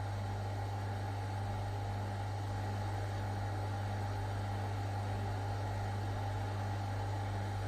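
Hot air rework gun running: a steady blower hum with a low drone and a fainter higher tone.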